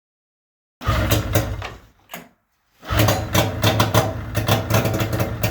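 Arctic Cat ZL440 snowmobile's two-stroke twin, run without a muffler, catching and firing in two brief rough bursts, the second longer and fading as the engine dies, just after its rebuild.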